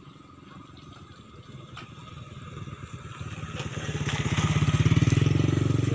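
A small engine running with a steady, even pulse, swelling from faint to loud and peaking about five seconds in.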